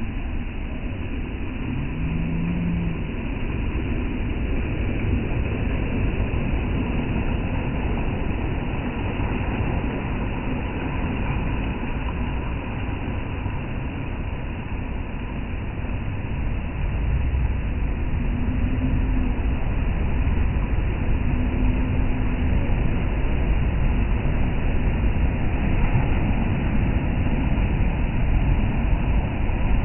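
Sea surf rumbling steadily as waves break on the shore, growing louder about halfway through.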